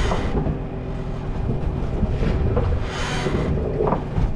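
Fishing boat's motor running with a steady low hum, overlaid by short bursts of hiss about two and three seconds in.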